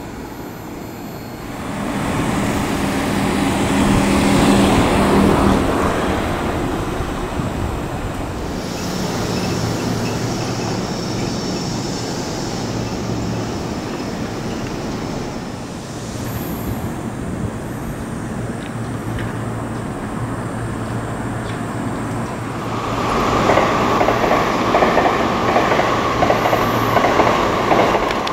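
Electric trains running slowly through a rail depot. One train runs by in the first few seconds, then from about three-quarters of the way in a yellow Seibu 101-series train passes close by, its wheels clacking over rail joints in a steady rhythm under a steady whine.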